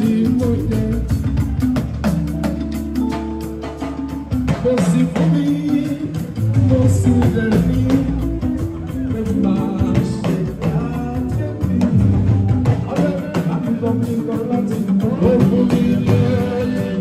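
Live party band music: a man singing over hand drums and a talking drum, with drum strikes running close together throughout.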